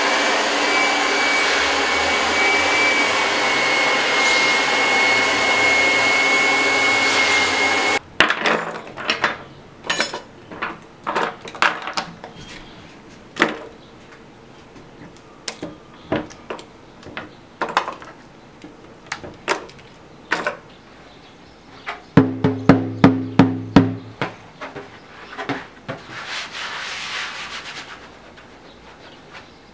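A hand-held hair dryer blowing steadily with a thin whistle on a wet skin drumhead stretched on a hoop, drying it; it cuts off abruptly about eight seconds in. Then scattered sharp clicks and clacks of metal spring clamps being handled, and a quick run of loud knocks with a low ringing tone a little past the middle.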